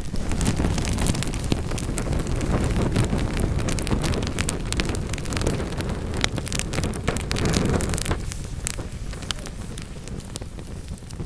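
Wood fire burning in a fireplace: a steady low rush of flames with many sharp, irregular crackles and pops from the burning logs, easing off a little in the last few seconds.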